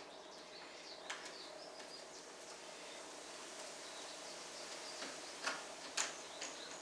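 Faint handling noise from the plastic window panel of a portable air conditioner's window kit being slid into place, with a few light clicks and knocks: about a second in, then twice more near the end.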